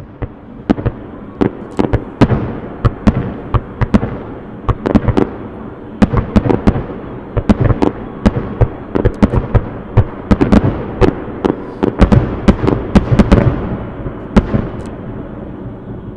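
Aerial fireworks display: a dense barrage of shell bursts, several sharp bangs a second over a continuous rumbling crackle, thinning out and fading away near the end.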